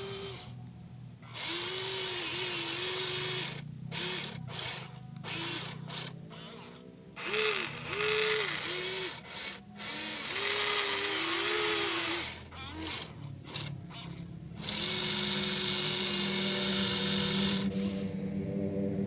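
Small electric motors and gearboxes of a Huina 1593 RC excavator whirring in many short bursts as its functions are worked, each burst's whine rising and falling in pitch as the motor speeds up and slows; one longer steady run comes near the end.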